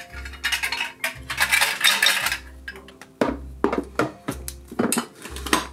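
Background music with a steady beat, over dry jumbo pasta shells rattling and clinking as they are poured into a glass jar. A few sharp knocks follow in the second half.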